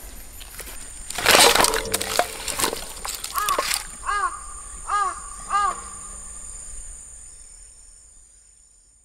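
A loud rustling crunch of dry branches and firewood being handled, followed by a crow cawing four times. The sound then fades out.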